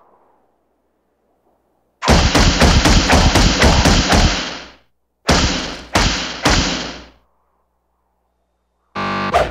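Cartoon thud sound effects. A rapid run of heavy thuds starts about two seconds in, at about four a second for nearly three seconds. After a short gap come three separate thuds about half a second apart, each dying away. Just before the end a different, steadier sound cuts in.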